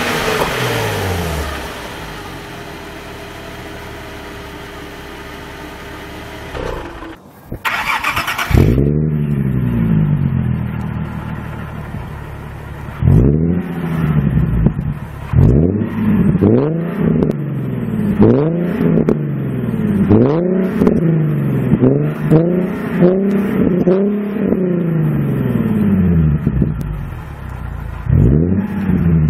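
Nissan 370Z's 3.7-litre V6 through an MCR titanium exhaust. It drops from a rev to a steady idle, then after a break gives one sharp rev that falls back slowly. After that comes a long run of quick throttle blips, about one a second, each rising and falling in pitch, with a short pause before a few more near the end.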